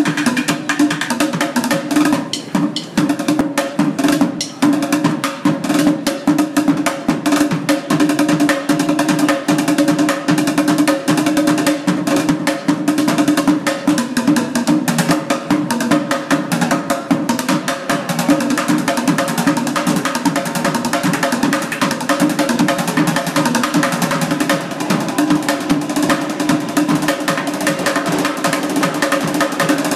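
Two bucket drummers playing upturned plastic buckets with drumsticks: a fast, continuous rhythm of stick strikes on the bucket tops that keeps going without a break.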